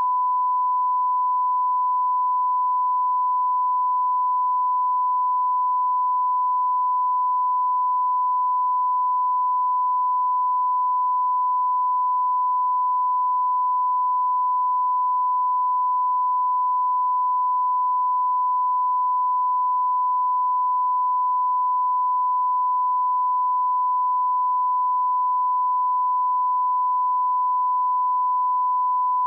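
Broadcast line-up test tone: a single steady 1 kHz sine tone held unbroken at a constant level.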